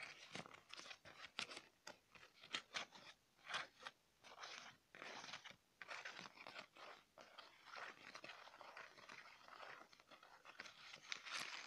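A sheet of white paper being crumpled and scrunched in the hands close to the microphone: a dense, irregular run of soft crinkling crackles.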